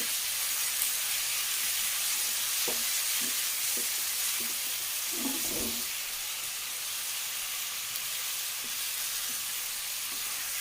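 Fried fish pieces sizzling in a pan of onion-tomato masala, a steady frying hiss, with a few light knocks of a spatula as they are tossed and a short clatter about halfway through.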